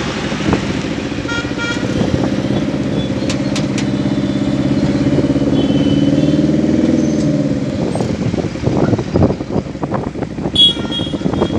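Vehicle engine running steadily during a drive through town traffic, with a few short high beeps about a second and a half in. From about eight seconds the steady engine note gives way to irregular buffeting noise.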